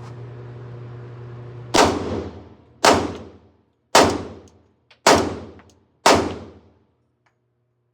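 Glock 20 10mm Auto pistol firing five hollow-point rounds, about one shot a second, starting about two seconds in, each shot with a short ringing tail.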